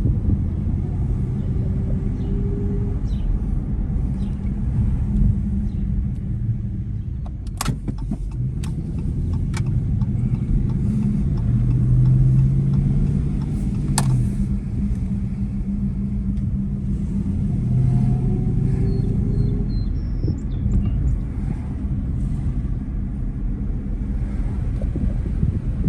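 Dodge Charger's Hemi V8 and road noise heard from inside the moving car, a steady low rumble. The engine note rises twice under throttle, and a few sharp clicks sound around a third of the way in and again near the middle.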